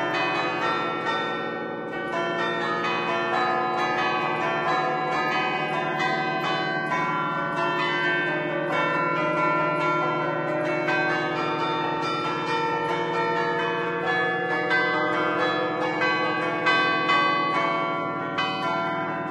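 Concerto of ten church bells in A, cast by Barigozzi in 1950, played in the Bergamasque allegrezza style from a bell keyboard: clappers strike the hanging bells in a quick run of strokes, playing a traditional local tune. Each bell rings on under the next, heard close up inside the belfry.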